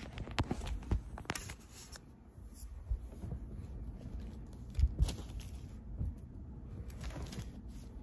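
US dollar bills being handled and counted by hand: paper rustling and flicking, with a few dull thumps, the clearest about five seconds in.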